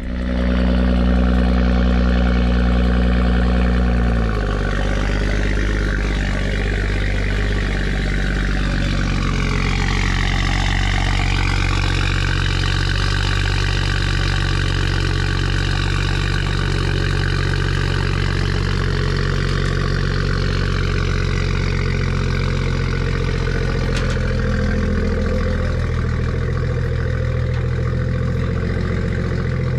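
BMW 340i's turbocharged straight-six idling steadily through a Valvetronic axle-back exhaust with both resonators deleted. The idle is higher and louder for the first four seconds, then drops a step and settles.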